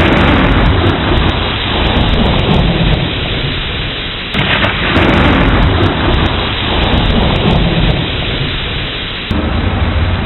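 Steady heavy rain with thunder: a crash at the start and another about four seconds in, each rolling away over a few seconds, and the low rumble swelling again near the end.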